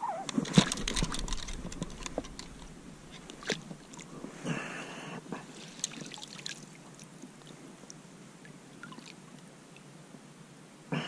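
Water splashing and dripping as a landing net holding a small perch is worked at the lake surface and lifted clear, letting the fish go. Sharp splashes and knocks are loudest in the first couple of seconds, with another splash about four seconds in, then only soft lapping.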